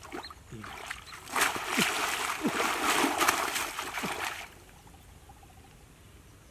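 Hands splashing and churning through shallow muddy water, a loud burst lasting about three seconds that starts a little over a second in and stops suddenly.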